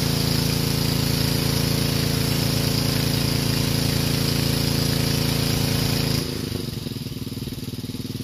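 Pressure washer running, its engine steady under the hiss of the water spray rinsing siding. About six seconds in the spray hiss drops away and the engine keeps running.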